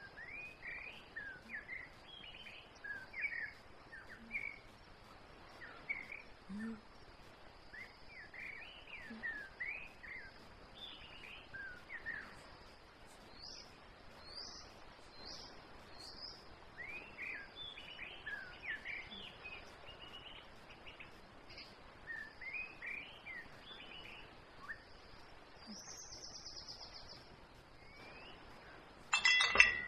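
Birds chirping over and over, short rising and falling calls, over a steady high insect hiss. Near the end a rising buzz, then a burst of loud clinking and clattering as metal objects are rummaged through in a car boot.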